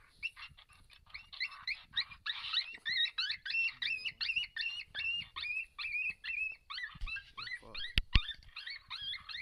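Fast, even string of high-pitched coyote-like yelps, about five a second, each with a bend in pitch. About eight seconds in, two sharp cracks a fraction of a second apart sound over them.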